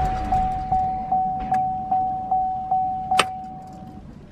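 A car's dashboard warning chime dinging over and over, about two and a half dings a second, each ding fading before the next. A sharp click comes about three seconds in, and the chime stops soon after.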